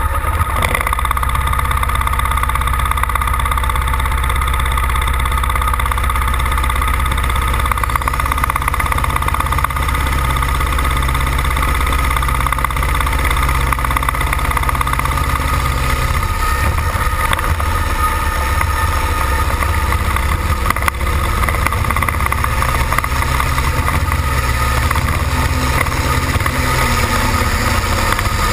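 Modified pulling tractor's engine running close by with a deep, steady rumble, hitched to the sled at the start of a pull; the tone shifts slightly about halfway through.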